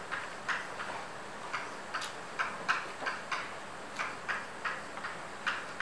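Chalk tapping and scratching on a blackboard as letters are written: a string of short, irregular taps, about three a second.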